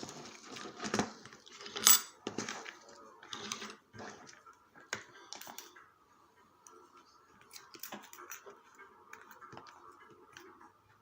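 Small metal clicks and clinks, several sharp ones in the first two seconds and sparser ones after, from a Yale Euro cylinder lock and metal tools being handled while it is taken apart.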